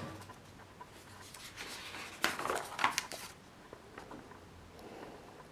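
Paper pages of an instruction booklet rustling as they are turned, starting about a second and a half in and lasting under two seconds, with two sharper crinkles in it.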